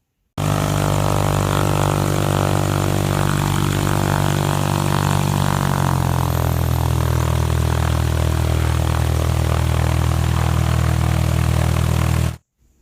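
Airplane engine sound effect: a steady droning hum that steps slightly lower in pitch about halfway through. It starts and cuts off abruptly.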